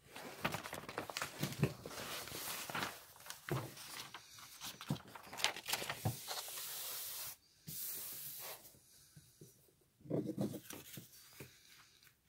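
Rolled diamond painting canvas and its printed cover sheet rustling and crinkling as they are unrolled and smoothed flat by hand, with a louder sliding swish just before eight seconds in.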